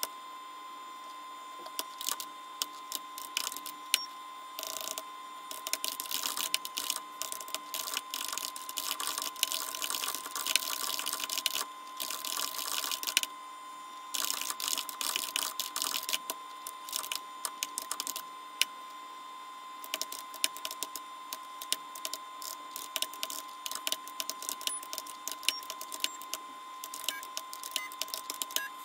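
Typing on a computer keyboard: quick runs of key clicks broken by short pauses, with sparser single presses near the end. A steady faint tone sounds underneath.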